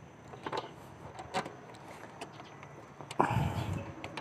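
Scattered light clicks and taps of metal brake-line fittings being handled and threaded into a new brake master cylinder. A louder knock comes just after three seconds in.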